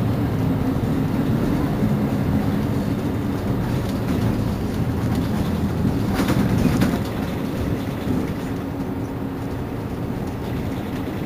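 Mercedes-Benz Citaro C2 city bus engine idling steadily with a low hum while the bus stands at a stop. A short hiss comes about six seconds in, and afterwards the engine runs a little quieter.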